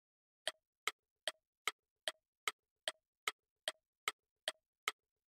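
Ticking sound effect of a quiz countdown timer: twelve short, even clock-like ticks, about two and a half a second.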